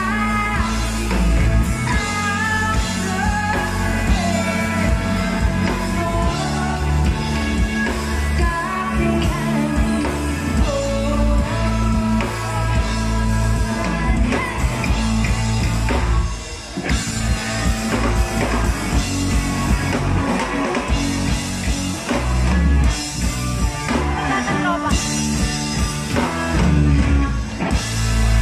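Live rock band playing a song, a singer over electric guitar, bass and drum kit.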